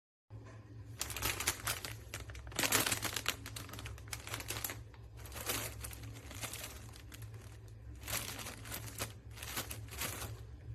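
Plastic crinkling and rustling as it is handled, in several bouts of quick crackles, over a steady low hum.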